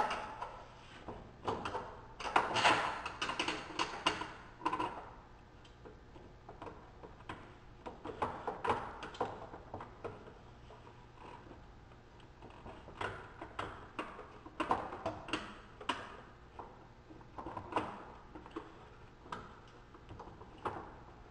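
Plastic and metal clicks, knocks and rattles as a Can-Am Maverick's front bumper and its plastic trim pieces are worked into place against the skid plate and frame, coming in irregular clusters with short pauses between.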